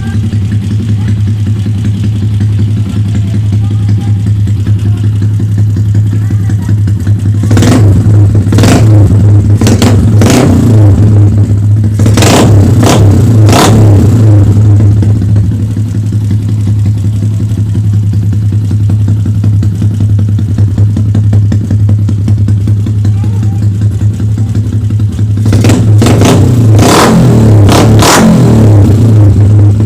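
Yamaha Sniper Classic 135's single-cylinder four-stroke engine running through a LeoVince open exhaust pipe, idling steadily. It is blipped in two groups of quick revs, about eight seconds in and again near the end, with sharp cracks on each blip.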